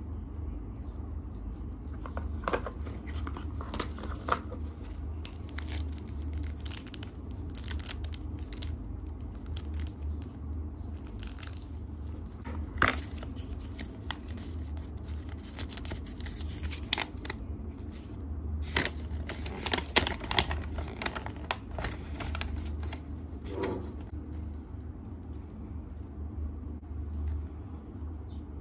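Paper and plastic packaging being handled: an instruction leaflet and a shrink-wrapped box crinkling and rustling in the hands, with scattered sharp crackles, over a steady low hum.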